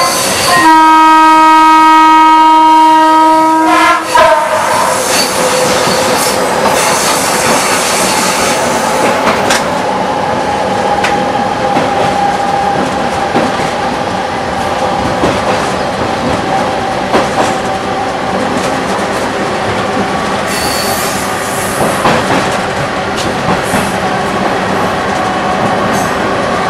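Class S11 DEMU train horn sounding one long blast of about three seconds near the start, then the train running steadily along the track.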